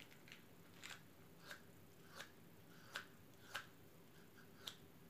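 Faint scratches of a wooden match being struck against a matchbox's striker strip, about seven short strikes, one every half second or so.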